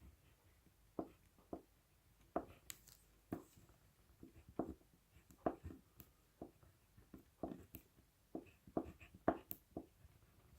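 Crayon writing on paper: short strokes at an irregular pace, roughly two a second.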